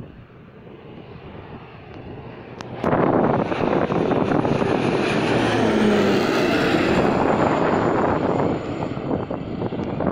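Beechcraft King Air twin-turboprop passing low overhead on landing approach. Its engine and propeller noise builds, then becomes suddenly loud about three seconds in, with a thin high whine falling in pitch as it goes over. It eases off somewhat near the end as the aircraft moves away.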